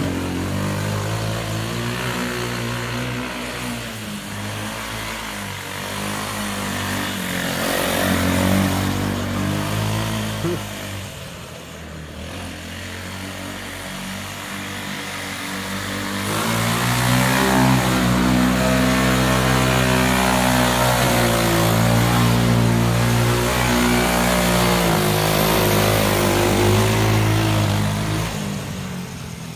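Foxico 150cc mini jeep's small engine running as the jeep drives over grass, its pitch rising and falling with the throttle and louder in the second half. The owner says the engine was losing compression.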